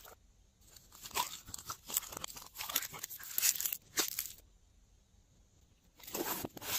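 Clear glossy slime squeezed and stretched between the fingers: sticky crackling and popping. It falls quiet for a moment and then picks up again briefly near the end.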